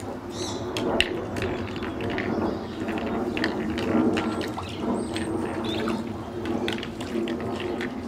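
A group of Asian small-clawed otters splashing and sloshing in shallow water at the pond's rocky edge, with many short, sharp high chirps and clicks scattered throughout.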